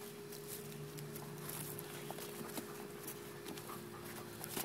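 Ten-week-old Doberman Pinscher puppies scampering at play, their paws landing in scattered light taps.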